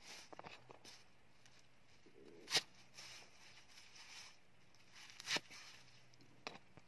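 Large knife cutting through bunched water spinach stems onto a round wooden chopping block: a few separate cuts, the two loudest about two and a half and five seconds in.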